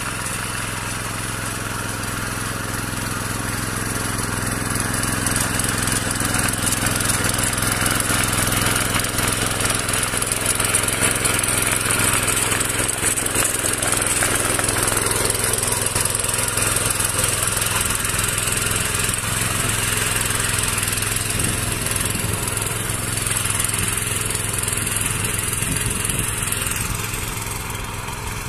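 Mini power weeder's small engine running steadily under load as its rotary tines till the soil, louder through the middle stretch.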